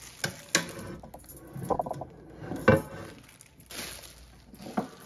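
Ninja air fryer's basket and parts clinking and knocking as they are handled and set in place: a handful of sharp taps, the loudest about two and a half seconds in.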